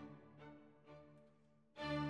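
Background instrumental music with long held notes, fading quieter through the middle and coming back in louder near the end.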